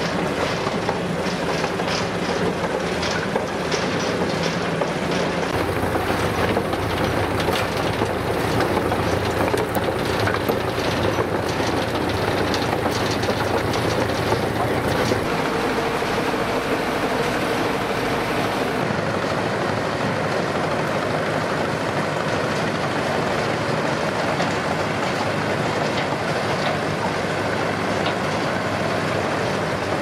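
Bucyrus-Erie 15B cable backhoe travelling on its crawler tracks: the engine runs steadily under a rapid clanking of track plates and drive chain over the sprockets, busiest in the first half.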